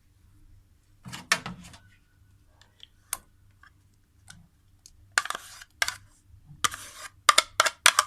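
Spoon and container clinks and short scrapes as caramel yogurt is spooned into the pan of cream: a few sharp knocks in the first few seconds, then a quicker run of scraping and clinking strokes in the second half.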